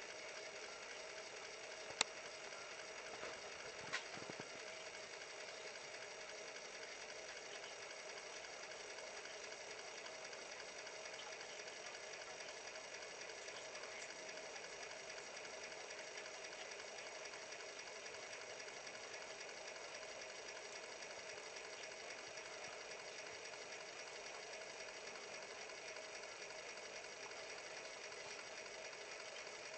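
Faint, steady whir of a Sony CDP-M19 CD player's mechanism spinning and reading a disc, with two light clicks in the first few seconds.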